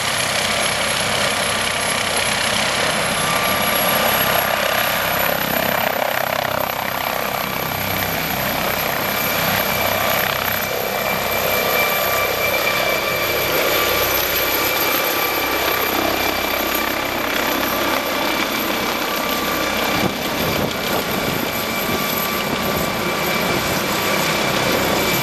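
Twin-turbine MD 902 Explorer (NOTAR) air ambulance helicopter lifting off and climbing away. The rotor and engine noise is loud and steady throughout. A high turbine whine rises slightly in pitch over the first five or six seconds as power comes up for take-off, then holds steady.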